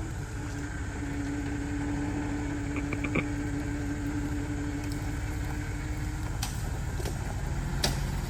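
Off-road Jeep engine running steadily with a low rumble and a held hum, as it works over a trail obstacle. A few sharp clicks or knocks cut in partway through and near the end.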